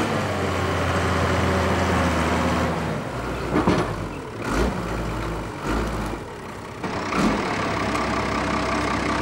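Timberjack wheeled skidder's diesel engine running as the machine drives past, steady at first, then uneven with a few knocks and low thumps in the middle before settling back to a steady run.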